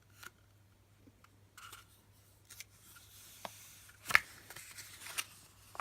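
A small paper scroll being handled and unrolled: soft paper rustles and light clicks, with one sharper tap about four seconds in.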